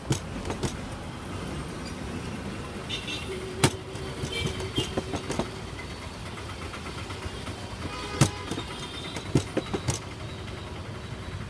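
Parotta dough being rolled and spread on a steel counter, with a handful of sharp knocks from the rolling pin and hands on the metal. A steady low rumble runs underneath.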